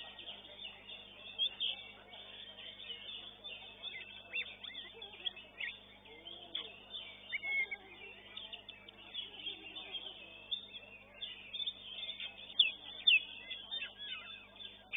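Oriental magpie-robins (kacer) singing in a contest, with rapid sharp whistles and chirps overlapping throughout and a steady low hum underneath.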